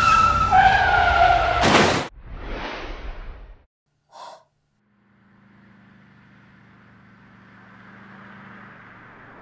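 Race-car sound effects: tyres squealing in high, bending tones, cut off by a sharp bang about two seconds in. Then a breathy whoosh, a near-silent pause with one short blip, and a low steady hum that slowly grows louder toward the end.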